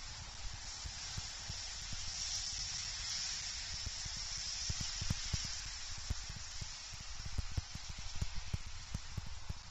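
Storm wind blowing across an outdoor nest-cam microphone: a steady hissing rush that swells for a few seconds in the middle, with frequent low buffeting thumps on the mic.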